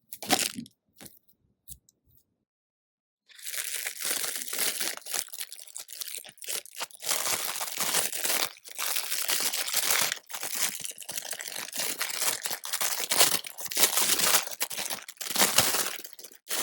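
Sticky, glittery banana squishy being squeezed and pulled, giving a dense crackling of tiny sticky pops that starts about three seconds in after a few faint clicks.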